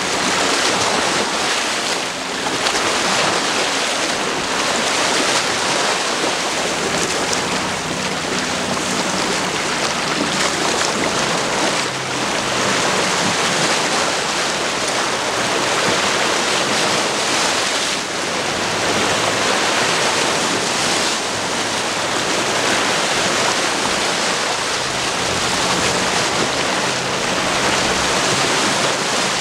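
Choppy water washing against a rocky shoreline, surging and easing every few seconds, with wind gusting over it.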